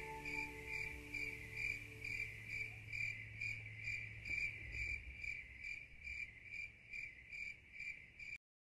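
Crickets chirping in a steady, even rhythm, about two chirps a second, while the song's last held notes fade out over the first couple of seconds. The sound cuts off suddenly near the end.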